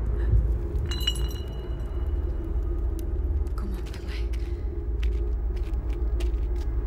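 Low, steady rumbling drone with a held hum in it. About a second in comes a sudden bright strike that rings on faintly for a couple of seconds.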